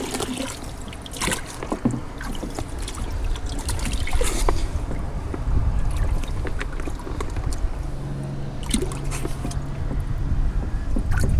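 Boat engine running with a low, steady rumble that becomes a steadier hum about eight seconds in, over wind on the microphone and scattered clicks of handling.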